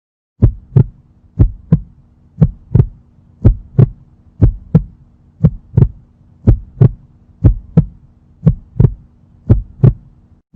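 Heartbeat sound: paired lub-dub thumps, about one pair a second, over a steady low hum.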